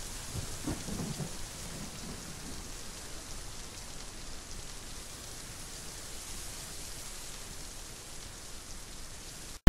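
Steady rain with a low rumble of thunder rolling through the first couple of seconds.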